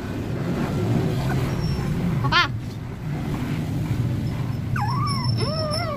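Shih Tzu puppy whimpering: a short high yip about two and a half seconds in, then a longer wavering whine near the end.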